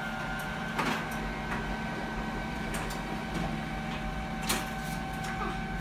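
Steady mechanical hum with a faint high whine, with a few light clicks and taps over it, about a second in and again past the four-second mark.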